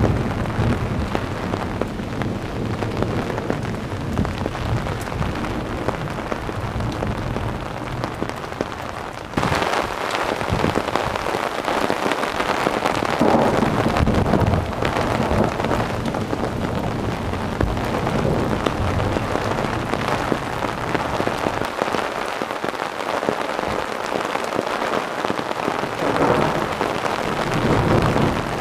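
Heavy rain pouring down steadily in a thunderstorm, with low rolls of thunder in the first part and again building near the end. The sound changes abruptly about nine seconds in.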